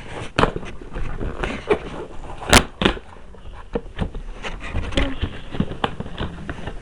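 Packaging being handled during an unboxing: a string of sharp clicks and knocks with rustling in between, the loudest knock about two and a half seconds in.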